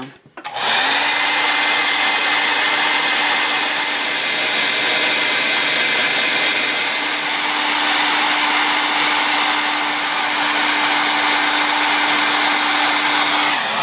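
Revlon handheld hair dryer running steadily, a loud rush of air over a steady motor hum, switched on about half a second in and off just before the end. It is warming a peeling sticker's old adhesive so it can be lifted off.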